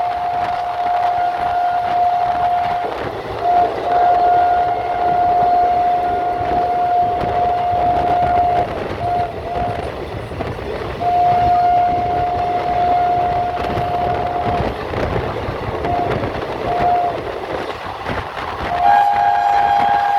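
Train horn sounding a single steady note in long blasts of several seconds, with short toots between them. Near the end a second, slightly higher note joins for a two-tone blast. A constant rumble of the passing train runs underneath.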